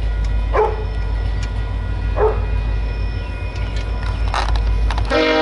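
A dog gives short yelping barks that fall in pitch, over a steady low rumble. Near the end a train horn starts to sound.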